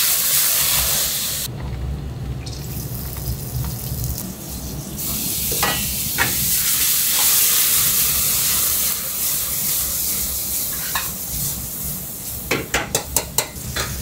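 Food frying in hot oil with a steady loud sizzle that thins for a few seconds after about 1.5 seconds in, then comes back. Near the end there is a quick run of about six sharp metal knocks.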